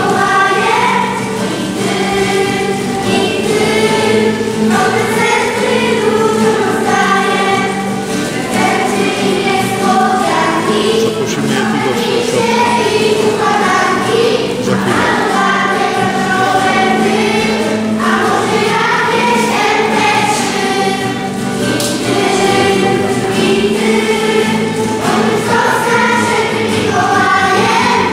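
Children's choir singing a song together, steady sung phrases, accompanied by an acoustic guitar.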